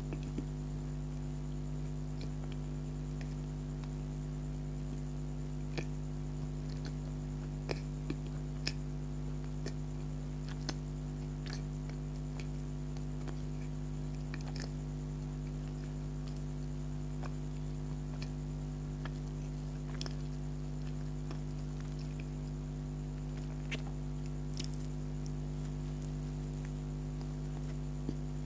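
Person eating donut close to the microphone: scattered soft mouth clicks and squishes of chewing, over a steady low hum.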